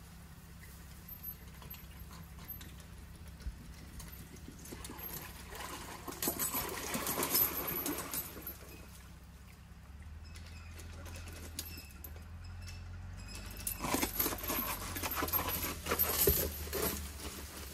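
A boulder dragged up a dirt and brush bank on a pulling line, crunching and clattering through soil, rocks and plants in two spells, about six seconds in and again from about fourteen seconds. A low steady hum runs underneath.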